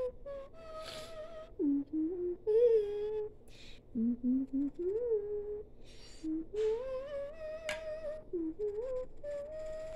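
A person humming a wandering, made-up tune, gliding between notes, with a single sharp click about three-quarters of the way through.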